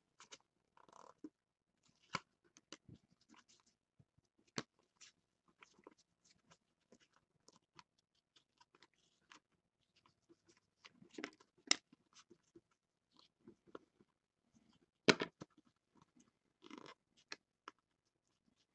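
Faint rustling and soft clicks of a stack of football trading cards being handled and flipped through by hand, with a few sharper card snaps along the way.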